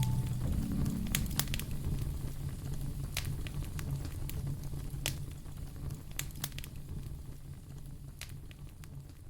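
Wood fire crackling: scattered sharp pops and snaps over a low, steady rumble of flame, fading out steadily.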